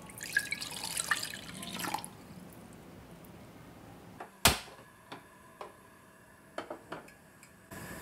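Milk poured in a stream into a ceramic saucepan, splashing for about two seconds. Then a single sharp click, the loudest sound, followed by a few fainter ticks, and near the end a steady hiss begins.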